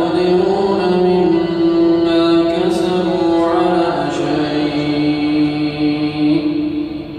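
A man chanting the Quran in the Hijazi maqam. He holds one long melodic note, and the pitch steps down about four seconds in.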